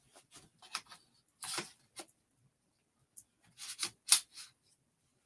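Parts of a studio easel being handled during assembly: a run of short rubs and scrapes of plastic and metal, with a longer scrape about a second and a half in and a sharp click near the end as a part seats.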